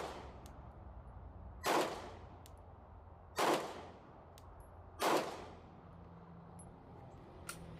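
Glock 19 Gen 5 9mm pistol firing three slow, evenly spaced shots about a second and a half apart. Each report has a short echoing tail. It is part of a five-round string of aimed fire.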